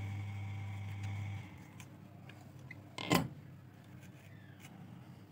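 Small metal parts of a soldering iron being handled, with a few light clicks and one louder knock about three seconds in. A steady hum cuts off about a second and a half in.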